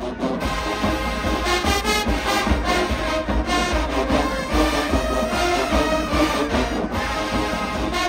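Full show-style marching band playing: massed brass (sousaphones, trumpets, trombones) over a steady beat of bass drums.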